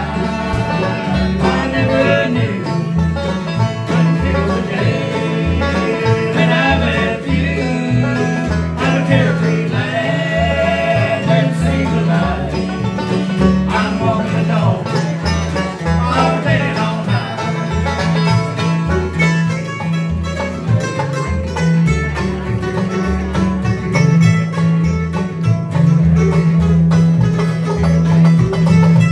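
Live bluegrass band playing: banjo, mandolin, acoustic guitar and upright bass, with a steady thumping bass line. Voices sing in harmony through the middle.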